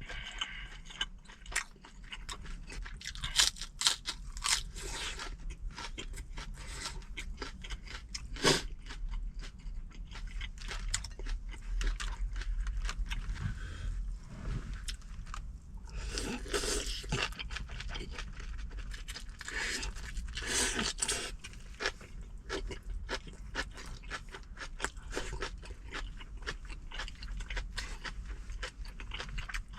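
A person chewing close to the microphone, crunching fresh napa cabbage kimchi (geotjeori) with wet mouth clicks. It goes on all through, with louder crunching a few seconds in, around the middle and about two-thirds through.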